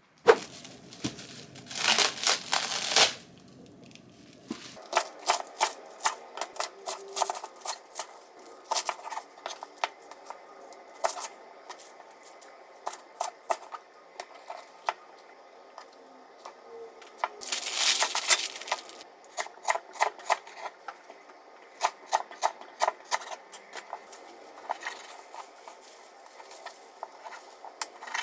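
Desk-work handling sounds: irregular light clicks and taps throughout, with two short rustling bursts, one about two seconds in and one a little past the middle.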